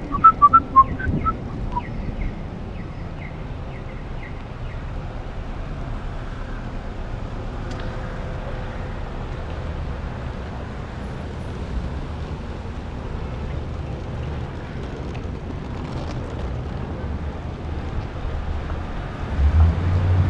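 Steady wind rush on the microphone and road noise from riding a bicycle along a rain-wet city street, with traffic passing. A quick run of short, high chirps sounds in the first couple of seconds.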